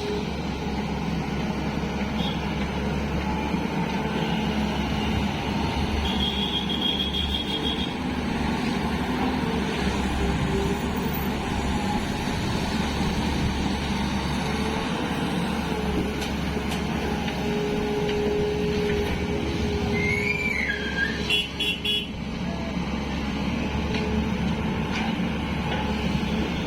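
Tata Hitachi EX 215 excavator's diesel engine running steadily as the machine works. A short high tone sounds about a quarter of the way in, and a brief wavering whistle and a few quick pips come about two-thirds through.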